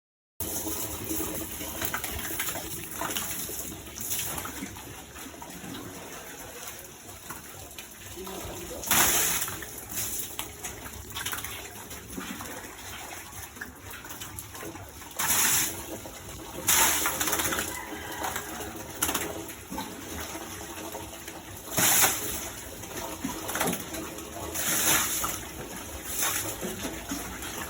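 Doves cooing in the background, with several short bursts of splashing water spread through the stretch.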